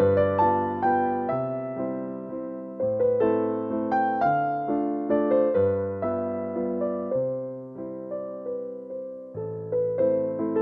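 Background music: a slow, gentle piano piece, with single melody notes over sustained bass notes.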